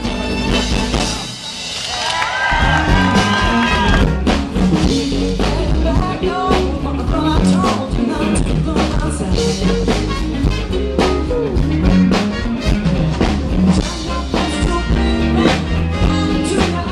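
A band playing with a drum kit. Shortly after a brief dip, a held, wavering note sounds over the band, and then the full band with steady drum hits carries on.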